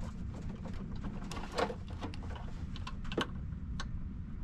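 Small clicks and rattles of wires and crimp spade connectors being handled and pushed onto the terminals of a two-pole air-conditioner contactor, over a low steady rumble. The sharpest clicks come about a second and a half in and about three seconds in.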